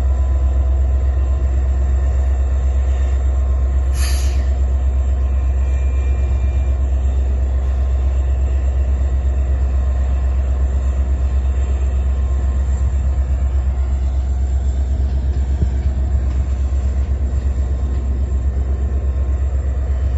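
Train running with a steady low rumble, and a brief sharp click about four seconds in.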